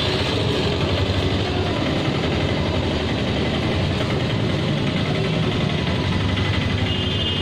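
An engine running steadily at idle, an even rumble with a fast low flutter.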